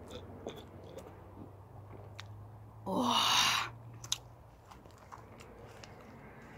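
Close-up chewing of moulding clay, with small wet mouth clicks scattered throughout. About three seconds in, a loud hiss lasts just under a second.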